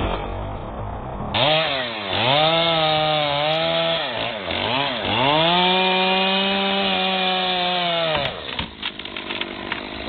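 Two-stroke chainsaw at high revs cutting through a cherry trunk. Its pitch dips and recovers several times, then holds steady for about three seconds before the saw stops. A scatter of short cracks and knocks follows near the end.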